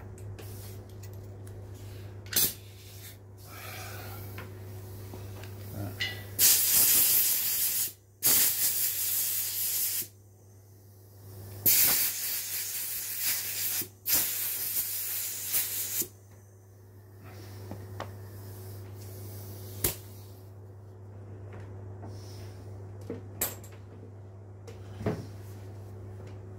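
Four long hissing jets, each one to two seconds, blasting over the air filter of a Husqvarna 141 chainsaw as it is cleaned, between about six and sixteen seconds in. A few sharp clicks and knocks come before and after, over a steady low hum.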